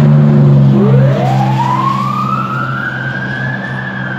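Fire truck going by with its siren sounding. The siren winds up from a low pitch about a second in, rises slowly for nearly three seconds, then starts to fall, over a steady low drone.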